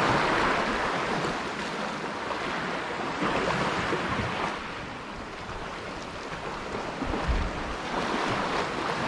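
Sea waves washing against a rocky shore, with wind on the microphone; the wash swells and eases, dipping about halfway through and building again near the end.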